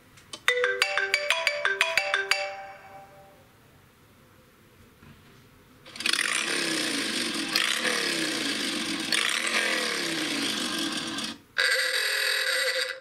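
iPhone classic ringtones played one after another. First a quick run of about a dozen plucked harp notes fades out. After a short gap comes about five seconds of a motorcycle engine revving, then a brief honking old car horn that cuts off at the end.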